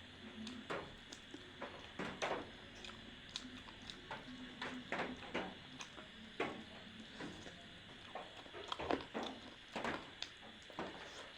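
A person chewing and smacking while eating chicken: irregular mouth clicks and smacks, a few each second.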